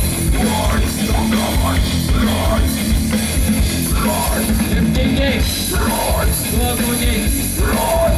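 Live death metal band playing loud: fast drum kit, distorted guitar and bass, with a harsh voice shouting over them.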